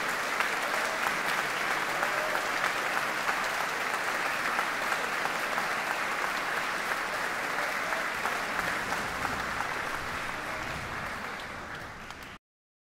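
Concert-hall audience applauding steadily, easing off near the end before cutting off abruptly.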